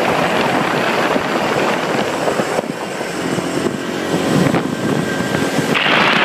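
Steady rushing noise of riding in traffic at speed, wind on the microphone mixed with vehicle engine noise; it dips a little midway and grows louder and hissier near the end.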